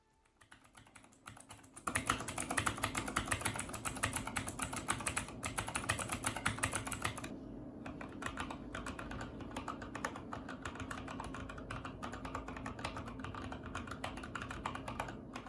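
Fast typing on a Redragon Dark Avenger mechanical keyboard fitted with a mix of its stock Outemu switches and replacement Gateron switches. A dense clatter of keystrokes starts about two seconds in and turns a little softer past the halfway point.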